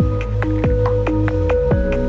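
Electronic background music: held synth tones over a steady beat of quick ticks and deep drum hits that drop in pitch.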